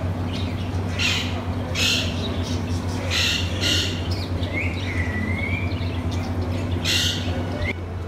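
Captive parakeets squawking harshly, several separate calls spread out, with a short whistled call that rises and falls near the middle. A steady low hum runs underneath.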